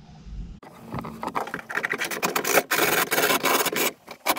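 Rust being scraped and rubbed off a steel engine bed, an uneven rasping scrape that starts about half a second in and grows louder.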